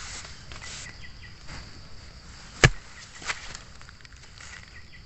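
Forest insects droning steadily at a high pitch, with a few soft knocks and one sharp strike about two and a half seconds in, followed by a smaller knock.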